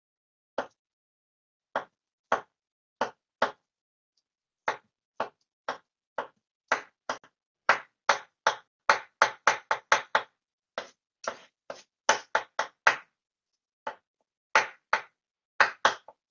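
A knife chopping hard-boiled eggs on a wooden cutting board: a string of sharp knocks as the blade meets the board. The knocks are irregular and come quicker, several a second, through the middle.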